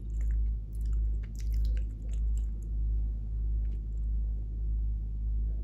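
Soft close-miked chewing and mouth clicks, mostly in the first two seconds, over a constant low hum that swells and fades about every two-thirds of a second.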